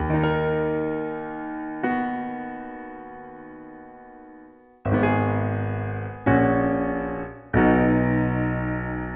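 Solo piano playing a slow passage of rolled, pedalled chords in E-flat. Five chords are struck, at the start and then about two, five, six and seven and a half seconds in, and each is left ringing and fading until the next.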